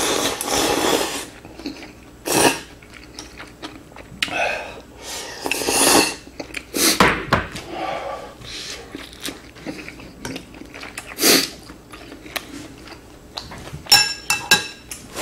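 Eating sounds: broth sipped noisily from a small glass bowl, then chewing with several short, loud slurps and breaths. Near the end, chopsticks clink a few times against the glass bowl, ringing.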